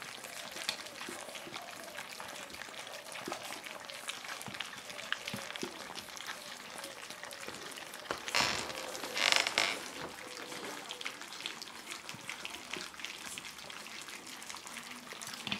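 Puppies eating soft food from shallow metal pans: a steady wet crackle of lapping and smacking, with small clicks against the metal. Two short, louder rushes of noise come about eight and nine seconds in.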